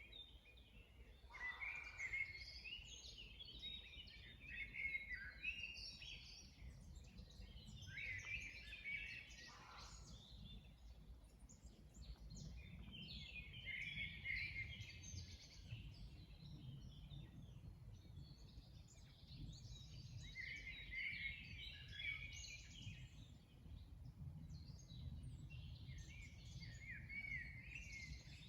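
Several songbirds singing in repeated bursts of chirps and trills every few seconds, over a faint low rumble of outdoor background noise.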